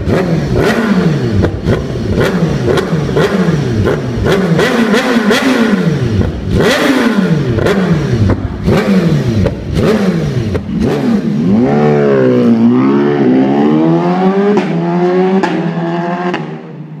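BMW S1000RR's 999 cc inline-four, through an Akrapovic exhaust, revved at standstill in quick throttle blips, about two a second, each rising and falling back, with sharp pops among them. In the last few seconds the revs are held higher and waver, then the sound cuts off shortly before the end.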